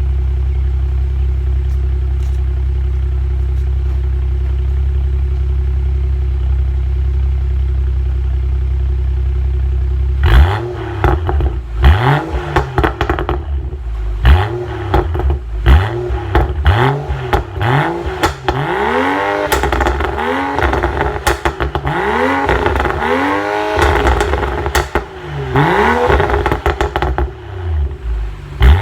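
Tuned BMW 535i xDrive's turbocharged inline-six with an M6 exhaust, idling steadily at first, then revved in a series of quick blips from about ten seconds in. Each rev drop brings loud pops and crackles from the exhaust, from the tune's high burble setting.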